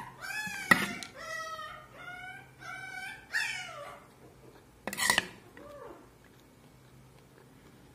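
A dog whining and yelping: about six short, high, wavering cries one after another, a louder, sharper cry about five seconds in, then a few fainter falling whimpers before it goes quiet.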